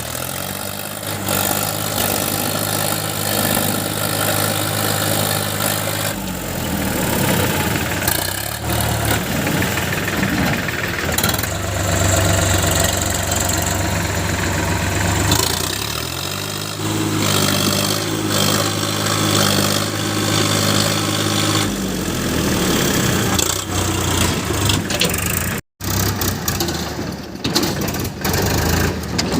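JCB 3DX backhoe loader's diesel engine working under load. It rises twice to a higher, steady speed, holds for several seconds each time, and drops back, as it does when the hydraulics work the bucket. The sound cuts out for an instant near the end.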